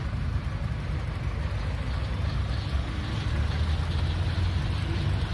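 Tractor engine idling with a steady low rumble.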